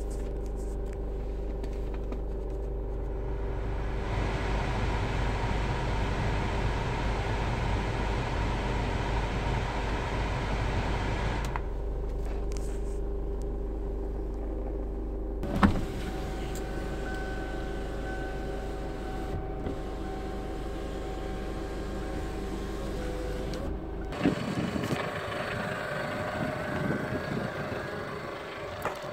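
Kia Sportage engine idling steadily, heard from inside the cabin. A steady rushing sound joins it from about four seconds in to about twelve seconds, and there is a single sharp click around sixteen seconds. Near the end the engine hum drops away as the sound moves outside.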